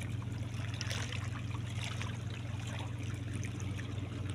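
River water lapping and trickling among shoreline rocks, over a steady low hum.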